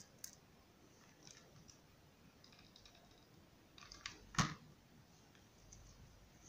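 Faint small clicks and taps from hands handling craft materials: satin ribbon and loose rhinestones. A quick run of clicks comes about four seconds in, ending in one sharp click, the loudest sound.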